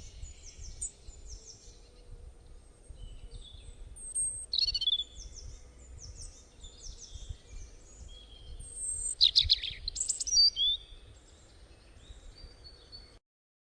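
Songbirds chirping: repeated quick, high, downward-sweeping chirps and calls over a low background rumble, loudest about nine to ten and a half seconds in. The sound cuts off abruptly shortly before the end.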